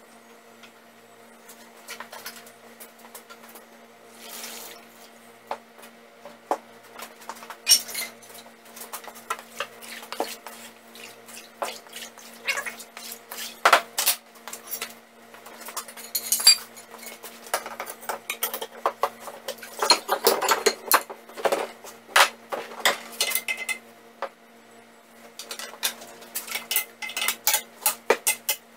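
Steel parts and bars clanking and scraping together as they are lifted out of an electrolysis rust-removal tank, with water sloshing. A steady low hum sits underneath.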